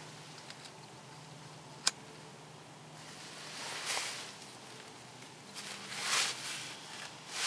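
A small campfire being lit: shredded paper-towel tinder catching under a teepee of dry sticks. There is one sharp click about two seconds in, then soft rustling, hissing swells as the flame takes hold.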